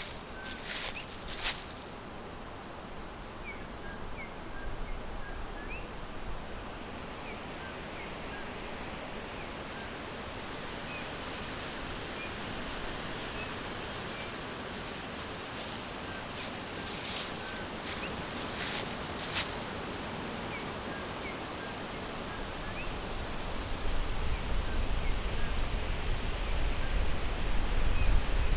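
Forest ambience: small birds chirping faintly and sparsely over a steady rushing hiss, with brief rustles about a second in and again past the middle. Low wind rumble on the microphone builds near the end.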